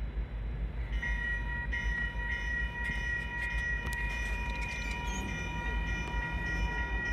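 Railroad grade-crossing warning bell that starts ringing about a second in and keeps ringing steadily over a low rumble as the crossing activates for an approaching freight train.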